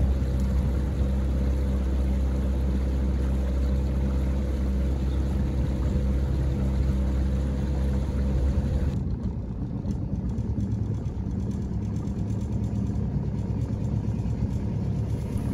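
A small boat's motor running steadily underway. About nine seconds in, the sound changes to a lower, rougher rumble.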